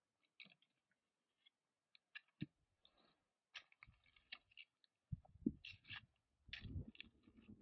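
Faint scattered clicking and rustling, with low rumbling bursts in the second half.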